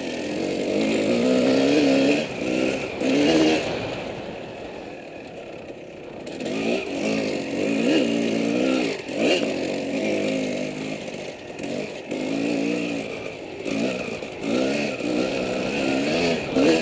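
Off-road dirt bike engine at race pace, the revs climbing and dropping again and again with throttle and gear changes, easing off for a moment about four to six seconds in.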